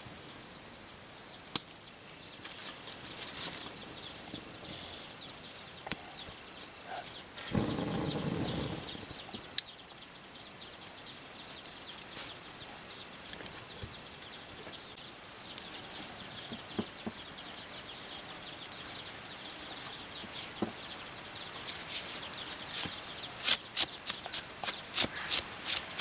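Wood fire crackling on an open hearth as burning sticks are shifted by hand, giving scattered sharp pops and knocks. A brief rushing whoosh comes about a third of the way in, and near the end a run of sharp taps comes about two a second.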